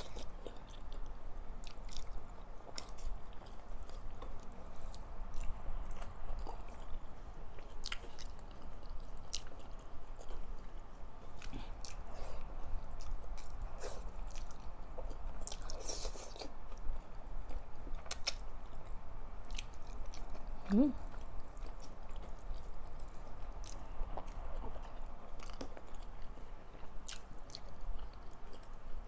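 Close-miked chewing of pinakbet vegetables, pork and rice eaten by hand, with wet mouth clicks and small crunches scattered throughout. A short rising vocal sound comes about two-thirds of the way through.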